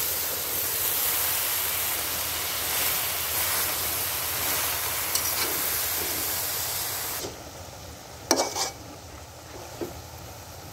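Fresh spinach sizzling and steaming on a hot dry fish and vegetable curry in a wok: a steady frying hiss. About seven seconds in it drops suddenly to a quieter sizzle, and a few sharp knocks follow about a second later.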